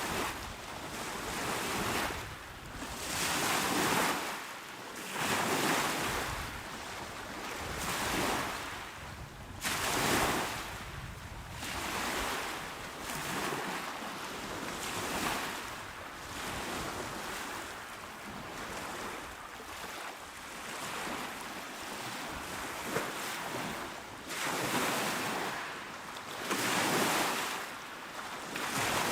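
Small waves breaking and washing up a shore, a hiss of surf that swells and ebbs every two to three seconds.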